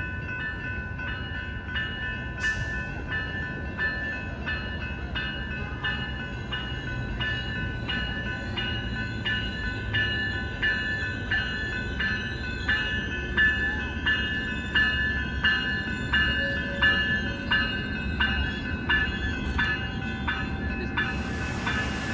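Railroad crossing bell ringing steadily, about one and a half strikes a second, while an approaching passenger train's rumble grows louder. A hiss starts near the end.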